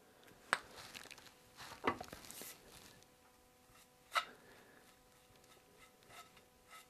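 Quiet handling sounds of gluing up a chair: an artist brush dabbing and spreading hide glue on a turned stretcher's tenon, with a few light knocks of the brush and wooden parts.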